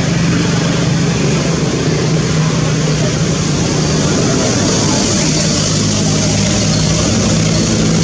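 A motor running steadily: an even low hum under loud, constant noise, with no break.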